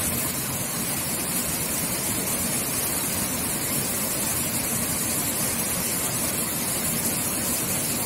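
Waterfall: water pouring over a rock ledge and splashing into a pool, a steady rush of water that is strongest in the high end.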